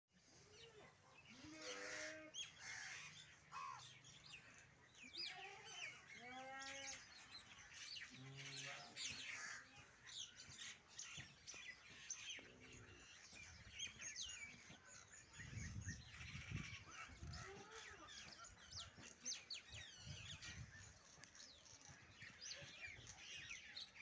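Many small birds chirping and twittering in trees, short high chirps overlapping one another, with a few lower, longer curved calls in the first ten seconds.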